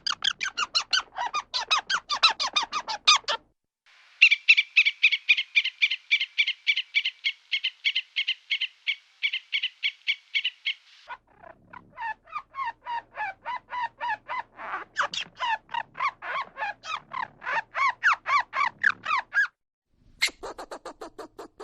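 Siberian chipmunk giving its alarm call: long runs of rapid, evenly repeated high chirps, several runs one after another with short breaks between them.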